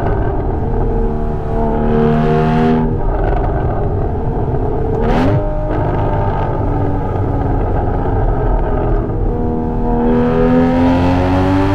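2016 Porsche Cayman's six-cylinder engine under hard driving, heard through a Soul Performance aftermarket exhaust with the active exhaust open. The revs hold, change sharply and briefly about five seconds in, then climb steadily near the end as the car accelerates.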